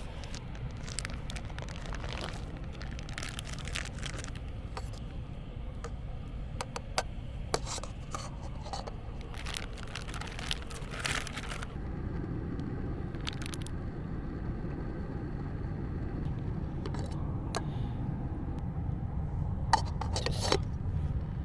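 Rustling, crinkling and scraping of things being handled, scattered through the first half and again near the end, over a steady low rumble that grows louder about halfway through.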